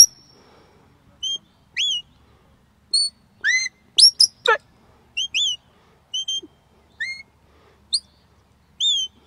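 Shepherd's sheepdog whistle commands: a string of short, sharp whistle notes, some rising and some falling, with one long downward sweep about halfway through, directing a working sheepdog around sheep.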